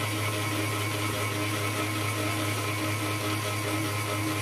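Electric stand mixer motor running steadily at constant speed, beating pancake batter in a steel bowl.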